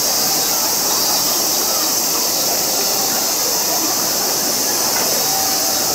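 A steady high-pitched hiss with faint distant voices beneath it.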